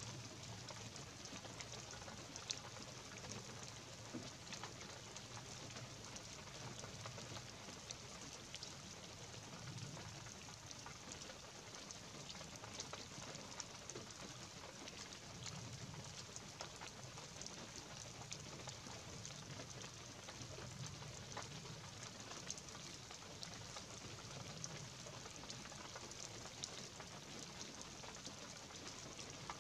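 Light rain falling steadily in a pine forest: a soft, even hiss made of many small drop ticks on pine needles and the needle-covered ground.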